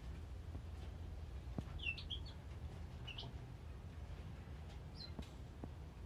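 Small songbirds in an aviary giving a few short, high chirps: a pair about two seconds in, one about three seconds in and one about five seconds in, with a few faint taps over a steady low rumble.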